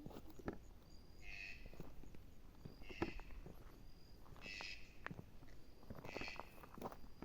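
Footsteps crunching over rough, stony ground while walking, with an animal call repeating regularly about every one and a half seconds.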